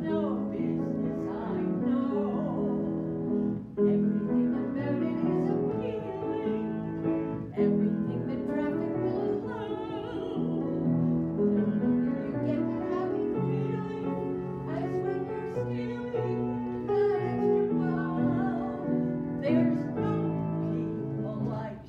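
A woman singing a Broadway show tune with piano accompaniment, in a full, operatic style.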